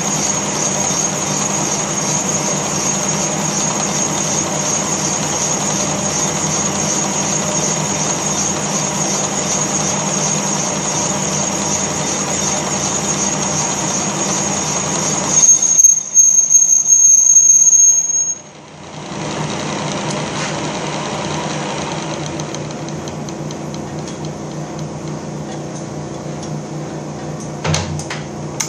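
Horizontal boring machine running with its boring bar cutting the rear main seal bore in a cast iron engine block, a steady machine noise with a high whine over it. About fifteen seconds in it gets louder for some three seconds, then the high whine drops away and the machine runs on more quietly, with a couple of clicks near the end.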